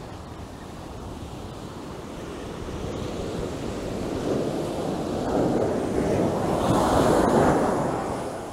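Ocean surf breaking and washing up a beach, swelling to its loudest a little before the end and then easing off, with wind buffeting the microphone.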